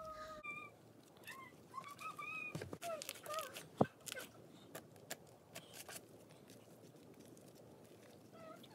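Thick clay-mixed slime being squished and folded by hand, giving soft clicks and small pops, with one sharp pop a little under four seconds in. In the first few seconds a few short squeaky sounds bend up and down in pitch; after that only faint scattered clicks remain.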